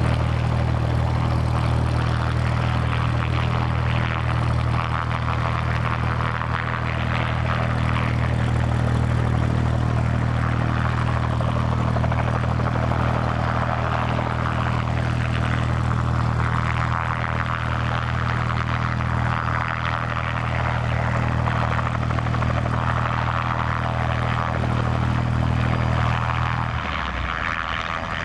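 Bell 206 JetRanger helicopter hovering: the steady low beat of its two-bladed main rotor with a higher rushing hiss above it. The low beat weakens and breaks up shortly before the end.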